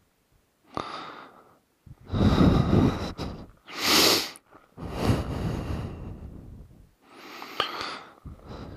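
A rider's heavy breathing close to a helmet-mounted microphone: a run of rushing breaths, each one to two seconds long, with a sharp hissing exhale about four seconds in.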